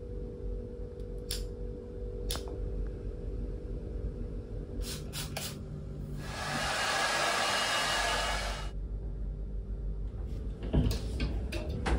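Hand-held hair dryer blowing steadily for about two and a half seconds in the middle. A few sharp clicks come before it, and a knock with some rattling near the end.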